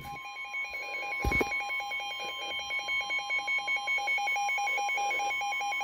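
NOAA weather radio warning alarm for a flash flood warning: a steady high alert tone, with a rapid, evenly pulsing electronic beep joining over it about a second and a half in. A single click sounds just before the beeping starts.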